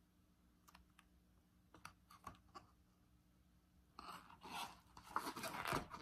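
A picture book being handled close to the microphone: a few soft clicks and taps, then from about four seconds in a denser rustling and scraping of paper pages.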